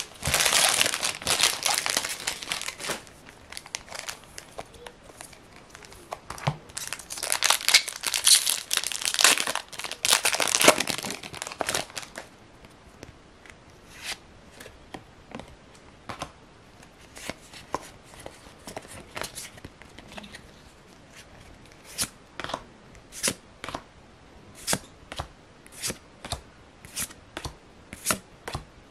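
Foil Pokémon TCG booster pack wrapping being torn open and crinkled, in two spells of tearing. Then a run of short, sharp card flicks, a little under one a second, as the cards are flipped through one after another.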